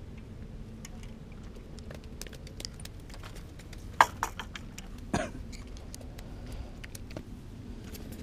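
Two sharp slaps or knocks, the first about four seconds in and the loudest, the second a second later, over a low steady rumble with scattered faint clicks.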